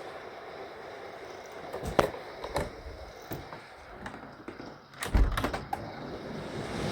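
Thunder: a few sharp cracks about two seconds in, then a loud, low clap about five seconds in that rumbles on.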